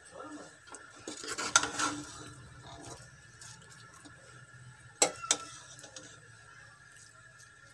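Metal ladle stirring and scraping through thick cooked lentils and greens in an aluminium pressure cooker, with two sharp clinks against the pot about five seconds in. A faint steady hum runs underneath.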